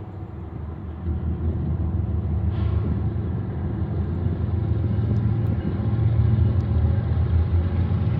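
Diesel-electric locomotives leading a Union Pacific freight train, their engines making a steady low drone that grows louder about a second in and again near the end as the train draws closer.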